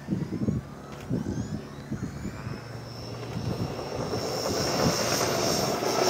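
Battery-powered electric motor and propeller of a small fixed-wing UAV spooling up for takeoff: a whine that climbs in pitch and grows louder over the last three seconds as the aircraft rolls down the runway.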